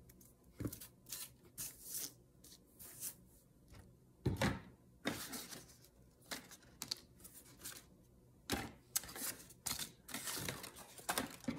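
Irregular rustling and crinkling of paper being handled as a printed paper strip is held and wrapped around a small cork-stoppered glass bottle, with a couple of dull knocks, about four seconds in and again near eight and a half.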